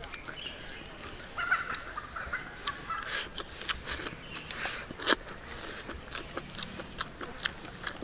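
Chopsticks clicking and scraping against a bowl while someone eats, with one sharp click about five seconds in, over a steady high-pitched drone of insects.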